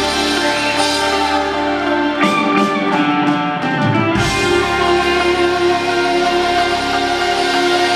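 Live rock band playing sustained electric guitar chords over a held band sound, with a short run of drum hits around the middle.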